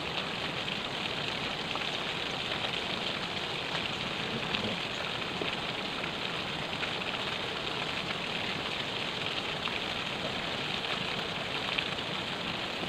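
Steady rushing hiss of river water flowing over rocks and gravel, even throughout, with no engine or voice over it.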